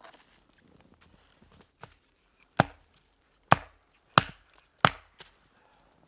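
Hatchet chopping wood: four sharp blows into a log, each under a second apart, with a couple of lighter knocks before and after.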